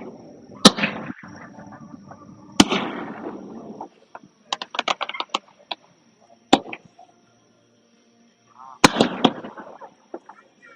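Fireworks shells bursting: sharp bangs every couple of seconds, each trailing off in a rolling echo, with a quick run of crackling pops in the middle.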